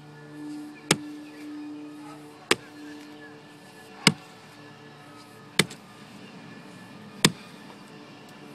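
An 8-pound sledgehammer striking a tree stump five times in a steady rhythm, one sharp blow about every second and a half.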